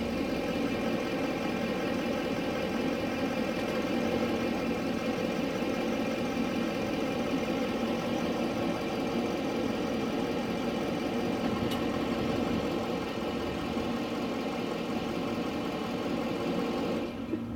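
A 2015 GMC Sierra 3500 HD's 6.6-litre Duramax V8 turbo-diesel running at idle as the pickup creeps slowly forward off its drive-up ramps. The steady diesel note drops near the end.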